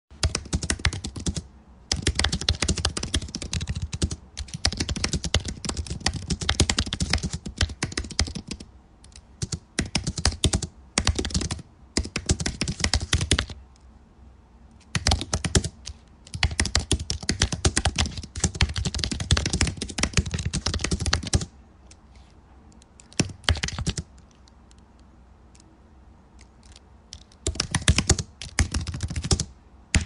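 Typing on a computer keyboard: fast runs of key clicks lasting a few seconds each, broken by short pauses, with a longer lull of several seconds in the second half interrupted by one brief run.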